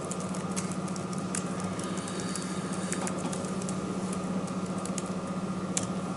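Typing on a computer keyboard: irregular key clicks, over a steady low hum.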